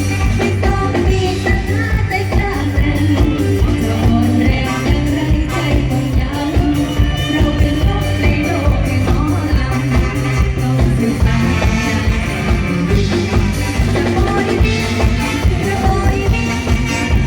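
A song with a singing voice over a band with a steady, fast beat and a strong bass line.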